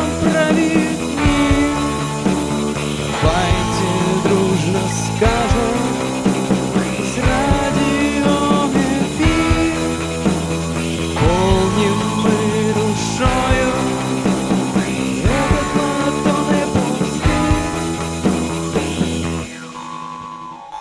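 Rock song playing, with drums and a steady low bass under a gliding melodic lead; the music stops a little before the end.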